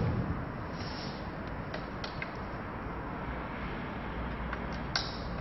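A few faint clicks and taps as wire connector plugs are pushed onto a hoverboard's gyroscope sensor board, with one sharper click near the end, over steady background noise.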